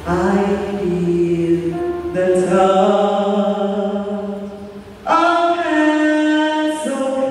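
Voices singing slowly in long held notes, phrase after phrase, with a brief break about five seconds in.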